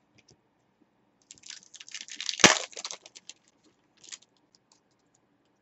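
Hands handling a stack of trading cards: a quick run of papery clicks and rustles, with one sharper knock about two and a half seconds in and a short rustle again near the end.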